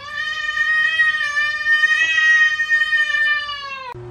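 A cat's long, drawn-out yowl that rises in pitch at the start, holds one steady note for nearly four seconds, then dips slightly and cuts off suddenly.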